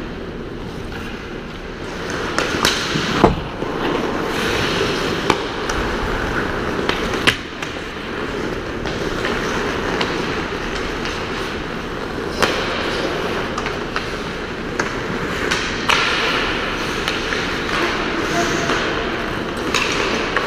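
Ice hockey play: skate blades scraping the ice over a steady rink noise, broken by sharp clacks of sticks and puck, the loudest about three seconds in and a few more spread through.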